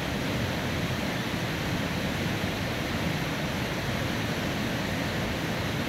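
Steady, even rush of running water, unbroken throughout.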